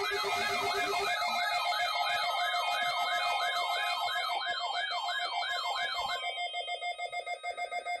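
Several NOAA weather radio receivers sounding their alert alarms at once for a Required Weekly Test: a siren-like warble sweeps up and down about twice a second over steady beeping tones. A low pulsing tone stops about a second in, and the warble stops about six seconds in, leaving the steady tones.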